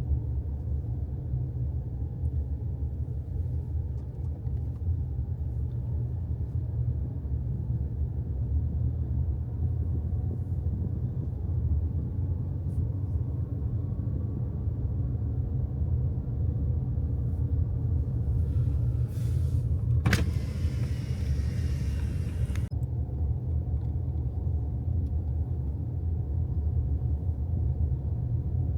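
Steady low road rumble of a car driving. About two-thirds of the way through, a sharp hiss starts suddenly and lasts a couple of seconds.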